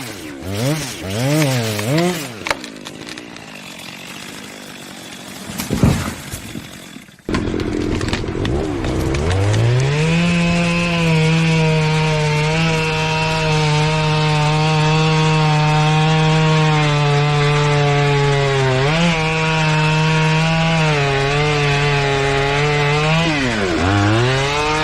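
A chainsaw being revved up and down in quick blips, then after a quieter stretch with a sharp crack, running at full throttle through a steady cut. Its speed dips briefly twice near the end.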